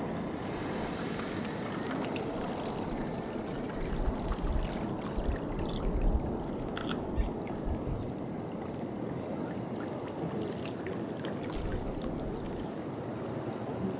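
Calm seawater lapping against a stone seawall: a steady wash with small trickles and splashes scattered through it. Low gusts of wind buffet the microphone now and then.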